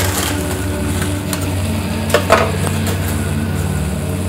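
Graham crackers and their packet being handled, a few short rustles and clicks about a second in and again around two seconds in, over a steady low hum.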